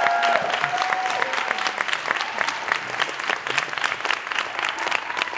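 Live audience applauding and cheering, with a few voices shouting near the start.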